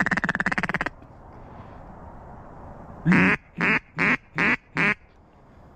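Mallard duck call blown close by: a rapid feed chuckle that stops about a second in, then a series of five loud quacks, the first drawn out and the other four short and even.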